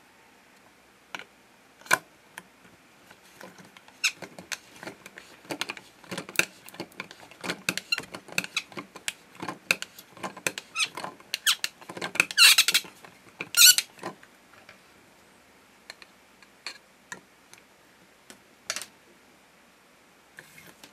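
Plastic noodle-press tool from a Bandai Cooking Puchi Food kit clicking and creaking as it is fitted and pressed down to push out dough, with two loud squeaks a little past the middle. This is the strange squeal the toy makes in use, which the owner thinks oiling might cure.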